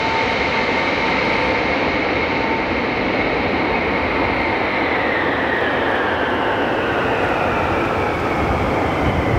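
Boeing E-3A AWACS (707 airframe) with four Pratt & Whitney TF33 turbofans, loud steady jet noise as it lands and rolls out, carrying high engine whines. The upper whine falls in pitch through the second half, and a deeper rumble builds near the end.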